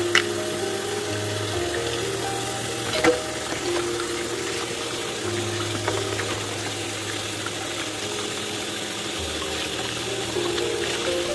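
Kitchen tap running in a steady stream onto crabs being rinsed by hand, splashing into a pot of water, with background music of held notes underneath. Two sharp clicks, one at the start and one about three seconds in.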